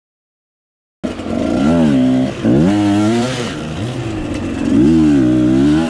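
Enduro dirt bike engine revving up and down again and again as the throttle is opened and closed, cutting in suddenly about a second in.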